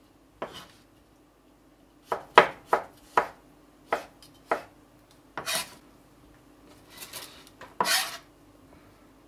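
Kitchen knife slicing mushrooms on a plastic cutting board: about seven sharp knocks of the blade on the board in the first half. After that come longer scraping sounds as the knife and hands push the cut pieces across the board.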